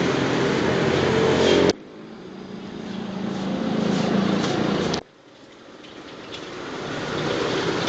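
Gas wok burner running with a steady rush while fried rice is stir-fried in the wok. The sound cuts off abruptly about two seconds in and again about five seconds in, each time swelling back up gradually, with a few faint ticks in between.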